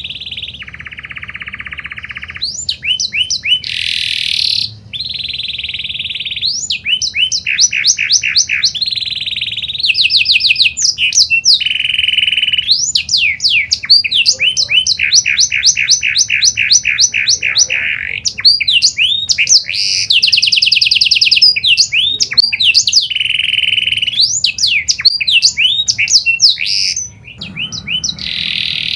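Pied domestic canary singing a long, unbroken song of rapid trills and rolls, switching from one trill to the next every second or two, with a brief pause near the end.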